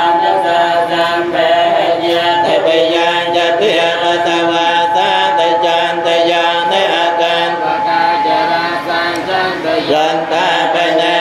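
Khmer Buddhist monks chanting Paritta, the Pali protective verses, several voices together in a steady, unbroken recitation.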